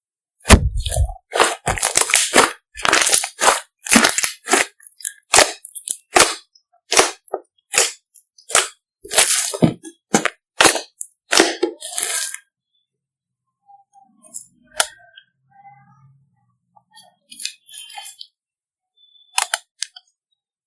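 Fluffy slime being squeezed and worked by hand, giving off a dense run of sharp crackles and pops as air pockets burst, for about twelve seconds, then only a few scattered faint clicks.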